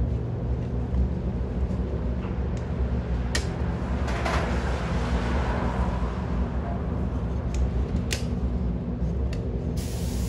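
Steady low hum of a paint booth's ventilation fans running, with a few sharp clicks and a brief hiss about four seconds in. A brighter, steady hiss starts near the end.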